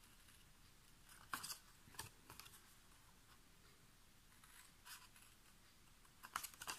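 Small scissors snipping short slits into thin cardstock, one quiet snip at a time: a snip just after a second in, two more around two seconds, another near five seconds, and a quick run of snips near the end. The cuts run in along the score lines to make the flaps of a folded box.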